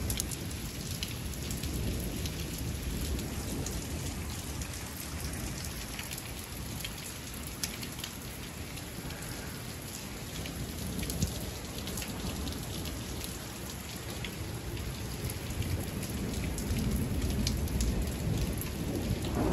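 Rain falling steadily, with many small drop ticks, while a low rumble of thunder swells near the end.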